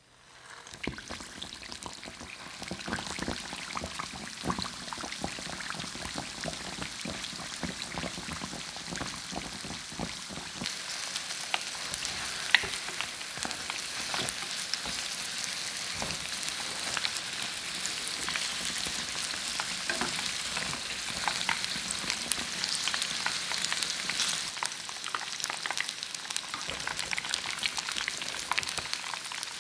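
Shrimp toast deep-frying in hot oil: a dense, continuous crackle of bubbling oil that begins as the first piece goes in, growing fuller and brighter after about ten seconds, scattered with small pops and one sharp loud pop about twelve seconds in.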